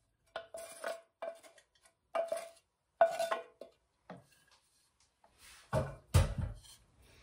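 A utensil scraping and clanking against a metal pan while browned ground beef is scooped out into the crock pot: a string of separate knocks with a short metallic ring, the sharpest about three seconds in, then a couple of heavier, deeper thuds near the end.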